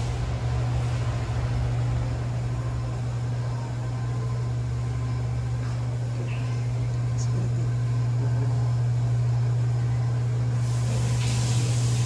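Steady low mechanical hum of commercial kitchen ventilation, with a soft hiss near the end.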